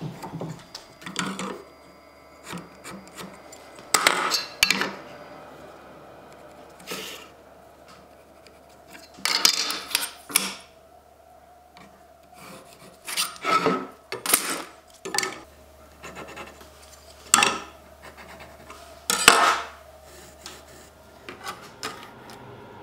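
Steel ruler and pencil scraping and rubbing on an oak board while it is marked out: short, irregular scrapes and clatters a few seconds apart, with quiet gaps between them.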